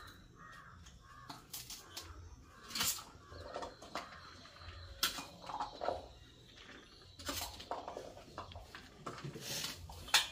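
Short, scattered clatters of a spoon against a steel bowl as boiled chickpeas are scooped out and dropped onto a banana leaf, with crows cawing faintly in the background.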